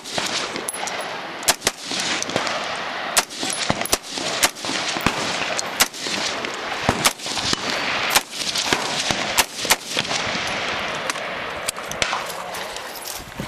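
Rifle gunfire in rapid succession: a string of sharp, irregularly spaced shots, about one to two a second, over a continuous noisy background.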